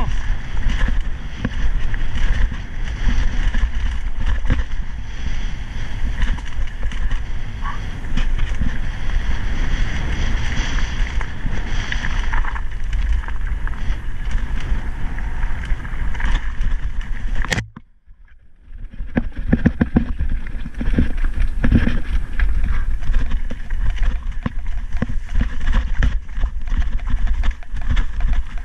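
Mountain bike descending rocky singletrack: a steady low wind rumble on the microphone with constant rattling as the tyres run over loose stones and the bike shakes. About two-thirds through, a sharp click and the sound cuts out for about a second, then comes back.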